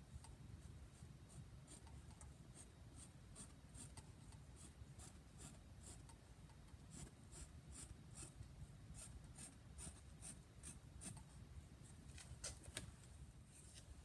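Black felt-tip marker tapping and drawing short strokes on a painted canvas, a faint series of quick scratchy marks about two or three a second, which stop shortly before the end.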